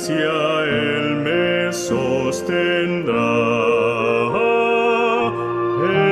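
A slow hymn sung in Spanish over instrumental accompaniment, with long held notes that waver slightly.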